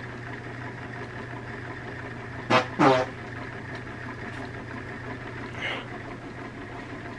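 Steady low hum in a small room, with two short vocal murmurs from a man about two and a half seconds in.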